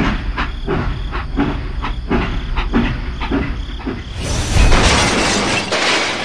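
Toy train running along plastic track, its wheels clacking rhythmically over the rail joints over a low rumble. About four seconds in, a crash with a loud rushing hiss that fades near the end.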